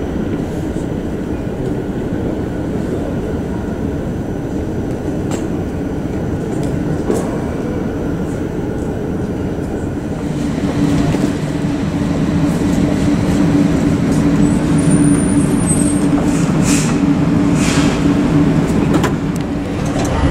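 Airport underground people-mover train, a steady rumble that grows louder with an added steady hum from about halfway through as the train runs. A few short, high squeaks and clicks near the end.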